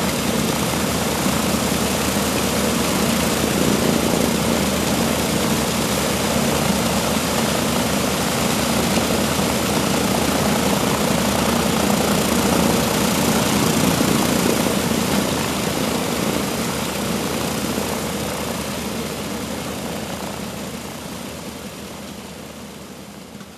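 Lockheed L-1049G Super Constellation's Wright R-3350 turbo-compound radial engines running steadily, with propeller noise. The sound fades out over the last several seconds.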